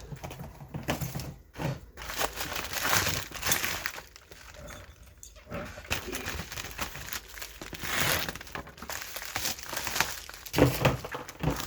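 Packaging crinkling and rustling in irregular surges as a parcel is unwrapped by hand, with a few sharper crackles.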